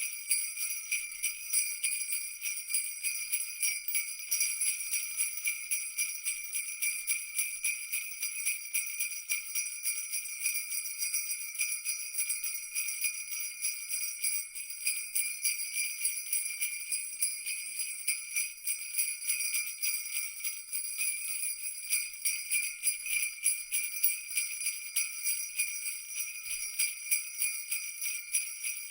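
Christmas jingle bells being shaken continuously in a fast, dense, steady jingle with high metallic ringing.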